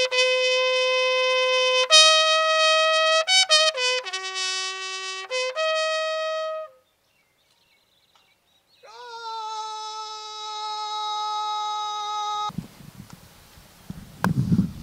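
A bugle call played as a military salute: single held notes stepping among a few pitches, a pause of about two seconds, then one long held note. About twelve seconds in, the call stops abruptly and outdoor background noise follows, with one sharp click near the end.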